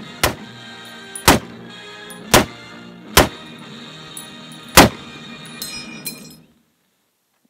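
M1 Garand semi-automatic rifle fired in quick succession, six shots, the first two close together and the rest about a second apart, over background music. The music cuts off suddenly about six and a half seconds in.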